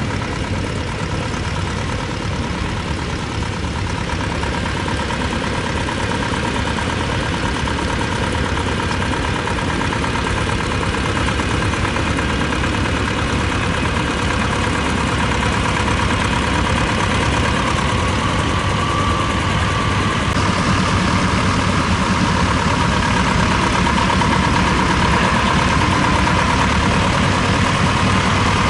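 Small vintage tractor engine running steadily while pulling a plow, growing gradually louder as the tractor draws near.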